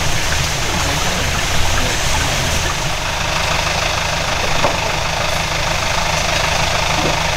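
Off-road 4x4's engine idling steadily under an even rushing hiss.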